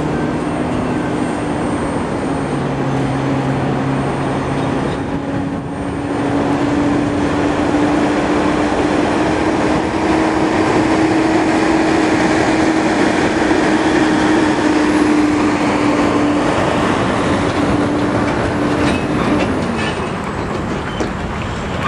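CSX double-stack intermodal train rolling past: a steady rumble and rattle of freight-car wheels on the rails. A low hum runs through it and stops shortly before the end.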